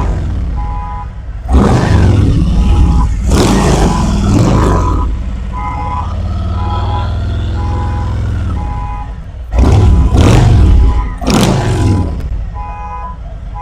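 Harley-Davidson Road King V-twin running through 36-inch chrome fishtail slip-on mufflers. It is revved hard several times: once about 2 s in, again a little later, and twice more near the end. Between the revs it settles to a steadier, lower run. A short, evenly repeated beep sounds over it for much of the time.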